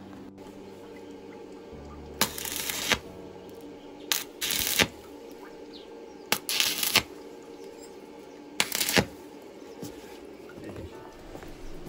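Stick (arc) welding with an E6013 electrode, tacking steel square tube: four short bursts of arc crackle and hiss, each under a second long, a second or two apart.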